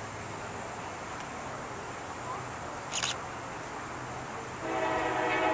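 Diesel locomotive air horn on an approaching freight train, starting suddenly as a long blast about four and a half seconds in over a steady background hiss. A short, high-pitched sound comes about three seconds in.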